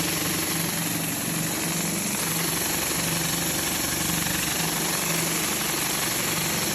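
Pressure washer engine running steadily under load while a 36-inch Whisper Wash Maxima surface cleaner sprays at about 2,700 psi, a continuous hiss of high-pressure water over the engine's pulsing drone.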